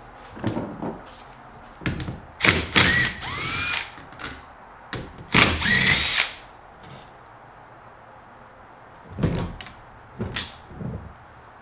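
Cordless drill-driver with a socket running in two bursts, its motor pitch rising and bending as it spins out the bolts that hold a wiper motor to the wiper transmission linkage. Metal parts clink and knock near the start and near the end.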